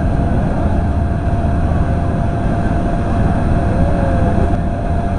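Steady low rumbling outdoor noise with a faint constant whine throughout.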